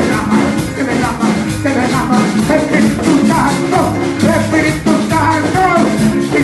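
Live Latin-style worship music: a man singing into a microphone over a hand drum and other percussion keeping a steady fast beat, with steady low notes underneath.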